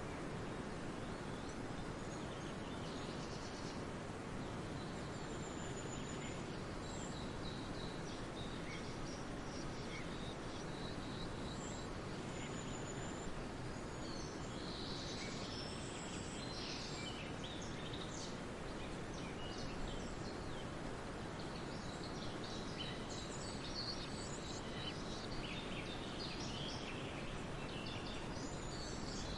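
Forest birds chirping and trilling in scattered short calls, more of them from about halfway on, over a steady low rushing background noise.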